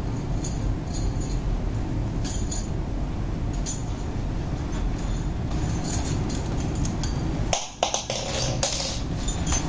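Bangles clinking lightly against each other as they are worked onto the wrist: scattered small clicks, thickest near the end. A steady low rumble runs underneath.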